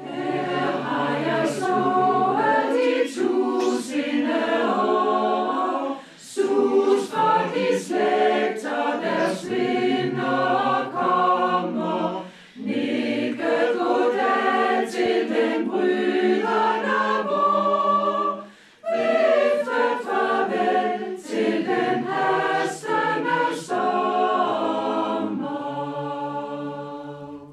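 Mixed choir of men's and women's voices singing together, with short pauses between phrases about every six seconds.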